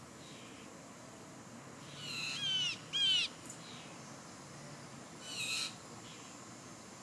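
Bird calls: short bouts of quick downward-sweeping high notes, a pair about two to three seconds in and another near the end, over a faint steady hum.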